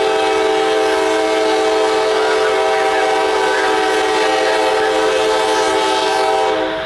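Air horn of a Norfolk Southern GE Dash 9 locomotive, sounded as it approaches a grade crossing, holding one long steady blast that cuts off near the end.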